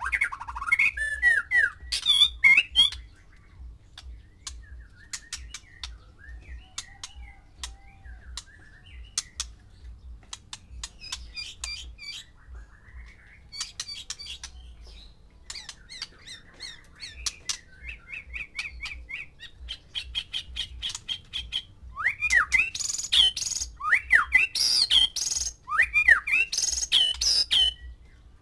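White-rumped shamas calling: a long run of sharp clicking notes with scattered short whistles, and loud phrases of rising and falling whistled song in the first few seconds and again over the last six seconds or so.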